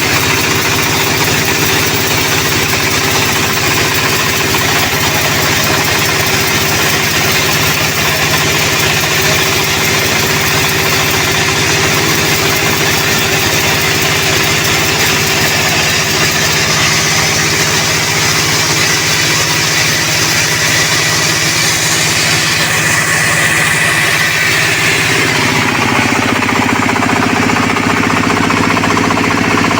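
A log sawmill runs steadily while sawing a sonokeling (Indian rosewood) log, a loud continuous machine hum with a high hiss over it. Near the end the machine's pitch drops and the high hiss fades.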